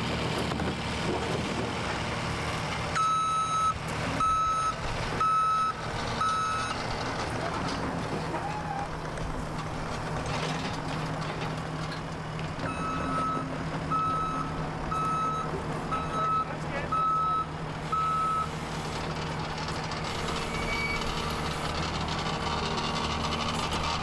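Case compact track loader's backup alarm beeping at about one beep a second, four beeps and then, after a pause, six more, while the loader's engine runs steadily underneath.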